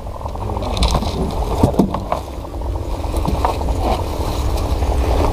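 Wind rumbling on the microphone aboard a small wooden fishing boat at sea, a steady low noise with a few light knocks from the boat.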